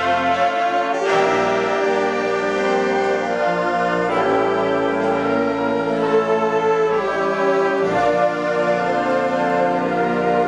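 School concert band of woodwinds and brass playing long held chords of a slow melody, the harmony shifting every two to three seconds.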